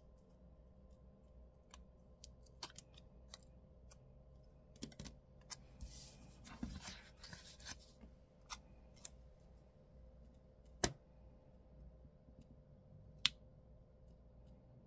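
Small scissors snipping intermittently around a paper sticker. About six seconds in there is a short stretch of paper rustling, and later a few sharp clicks as the sticker is handled and pressed onto a planner page.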